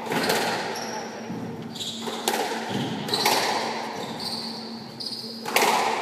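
Squash rally: the ball cracks off rackets and the walls in a string of sharp, echoing hits one to two seconds apart, with shoes squeaking on the hardwood court floor between shots.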